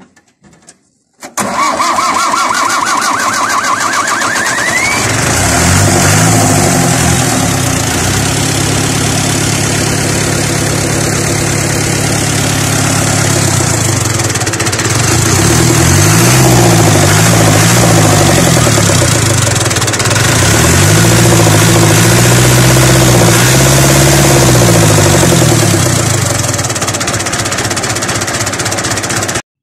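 Universal 550 tractor's diesel engine being started: a rising whine as it cranks for a few seconds, then it catches and runs, revved up and down several times. It is a test run after the fuel injection pump's cover gaskets were replaced to stop a diesel leak.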